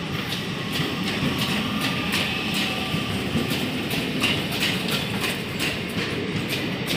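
Indian Railways passenger coaches rolling past, their wheels clattering over the rail joints in a quick, uneven run of clicks over a steady rumble.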